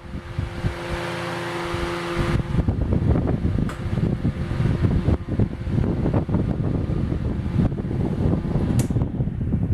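Casablanca Zephair 16-inch oscillating table fan running: a steady motor hum with airy whoosh for about two seconds, then its airflow hits the microphone as a choppy rumble.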